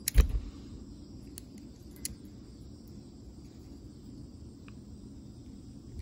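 A sharp thump just after the start, then a few faint metallic clicks as a steel Gerber Diesel multi-plier is handled, over a steady low background hum.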